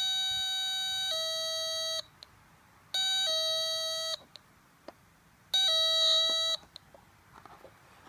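Cheap electronic doorbell kit playing a two-tone ding-dong through a small loudspeaker, a higher note stepping down to a lower one. It plays three times, repeating about every two and a half seconds; the first high note is held longest.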